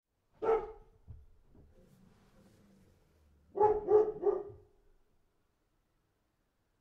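A dog barking: a single bark about half a second in, then three quick barks in a row a few seconds later.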